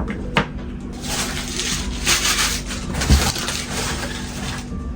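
Rustling and rubbing from handling a boxed lighter and its packaging, with a couple of light clicks near the start, over a steady low hum.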